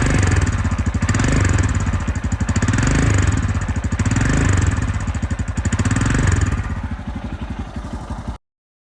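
Royal Enfield Himalayan motorcycle engine running under way, rising and falling in pitch several times, then easing off before cutting off abruptly near the end.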